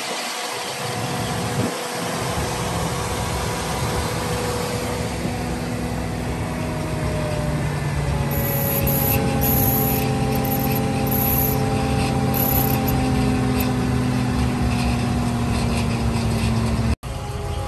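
The gasoline 7.0-litre V8 of a 1989 GMC C7000 fire truck running steadily, its pitch drifting slightly up and then back down. The sound cuts out abruptly for a moment near the end.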